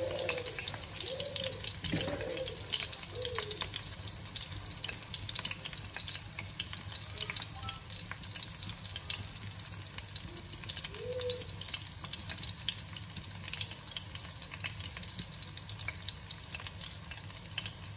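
Chopped garlic sizzling in hot oil in a wok, a steady hiss with a dense run of small crackles and pops, over a steady low hum.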